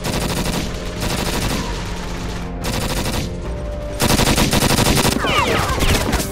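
Bursts of rapid automatic gunfire in the manner of a PPSh-41 submachine gun: a long burst, a short lull with scattered shots, then a second burst about four seconds in. A few falling whistling sounds come near the end.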